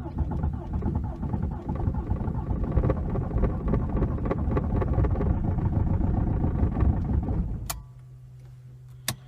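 Diesel engine being cranked by its starter motor in severe cold (about −39 °C), turning over for nearly eight seconds without catching, then the starter is released and it stops abruptly.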